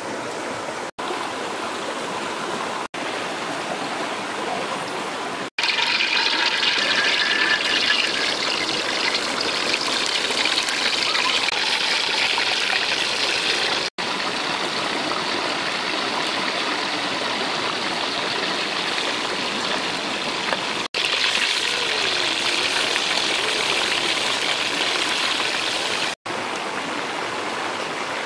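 Steady rushing of a stream, with a louder, brighter hiss of whole frogs frying in hot oil in a steel wok in two long stretches. The sound drops out for an instant several times.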